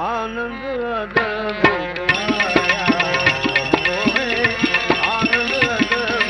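Gujarati devotional bhajan music: a gliding melody over a steady hand-drum rhythm, with the drumming growing busier about two seconds in.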